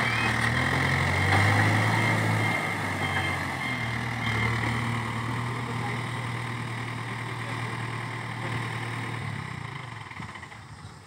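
Diesel engine of a Case 770 backhoe loader running at work speed, rising briefly in pitch early on and then settling and fading away steadily, with a thin high whine over it for the first couple of seconds.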